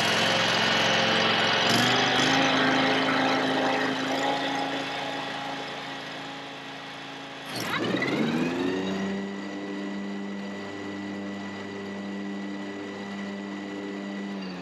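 Scag Turf Tiger mower engine running, its speed stepping up about two seconds in. About seven and a half seconds in there is a sudden clack as the electric deck clutch engages at once, with no soft start. The engine's pitch then sags and settles lower under the load of the deck belts.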